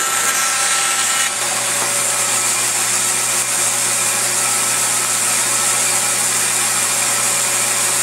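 A woodworking power tool running steadily, giving a loud, even machine noise with a low motor hum.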